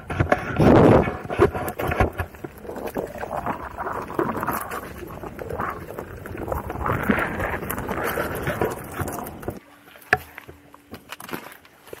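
Electric unicycle's knobby tyre rolling over a gravel and dirt trail, stones crunching and clicking under it, loudest about a second in. About nine and a half seconds in the rolling noise stops and a faint steady hum is left.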